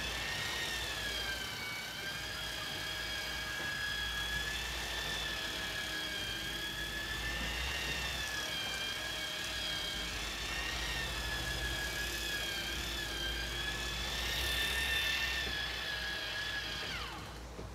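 Sportfishing boat's engines running under way: a steady low rumble with a high, slightly wavering whine on top, which falls in pitch and fades near the end as the throttle comes back.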